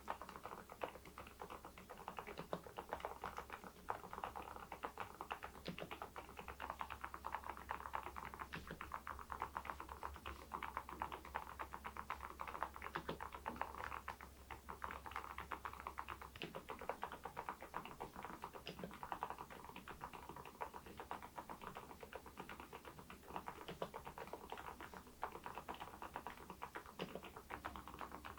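Continuous typing on an Epomaker TH80 V2 Pro mechanical keyboard fitted with Kailh Deep Sea switches and ceramic keycaps: a steady, dense run of keystroke clacks.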